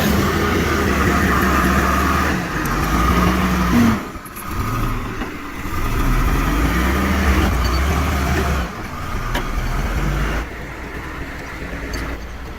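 Diesel engines of heavy log skidders running and pulling under load. The sound changes abruptly several times.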